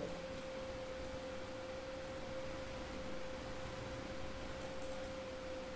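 A faint, steady pure tone at a middle pitch, one unchanging note, over low background hiss.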